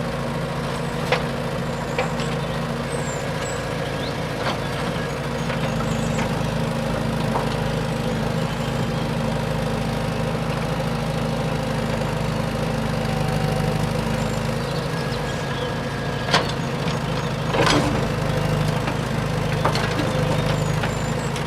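A mini tractor running with a steady, engine-like hum, with a few sharp clicks and knocks, the clearest about a second in and around two-thirds of the way through.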